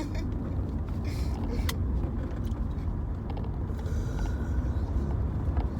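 Steady low rumble of a car heard from inside the cabin while driving, with a single sharp click about a second and a half in.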